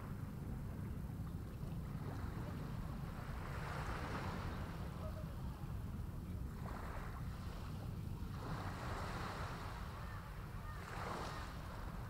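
Small waves washing up and back on a sandy, rocky shore, several soft swells of surf a second or two long, over a steady low rumble of wind on the microphone.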